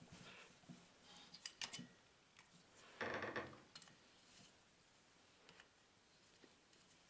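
Small steel hex key clicking and scraping against the screws of a chainsaw muffler as it is fitted and turned by hand: a few light clicks, then a short scrape about three seconds in, the loudest sound, then near quiet.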